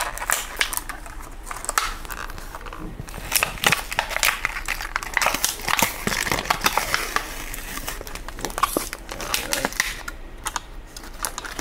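Clear plastic blister pack of a die-cast toy car being pried and peeled off its cardboard backing card by hand, crinkling and crackling in quick, irregular snaps.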